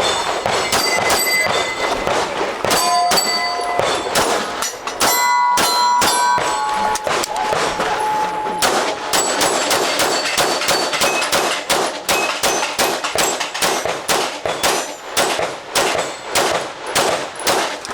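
Rapid strings of pistol shots fired in quick succession, with steel targets ringing after hits, most clearly between about three and nine seconds in.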